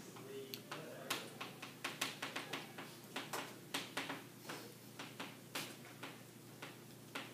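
Chalk on a chalkboard: an irregular run of quick taps and short scratches as lines are drawn on the board.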